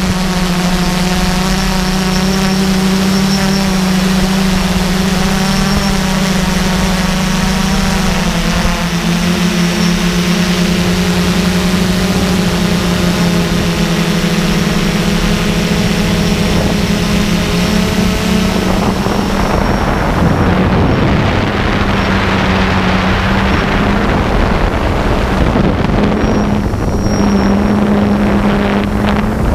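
Quadcopter's electric motors and propellers running with a steady, loud hum and whine, recorded by the camera on board. About two-thirds of the way through the higher whine drops away and rushing wind noise takes over while the hum continues.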